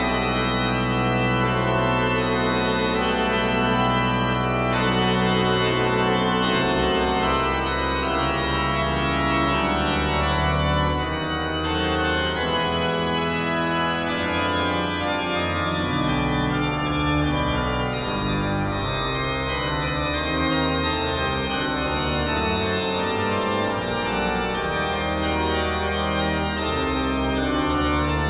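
Background music of sustained organ-like chords, the bass note changing every few seconds.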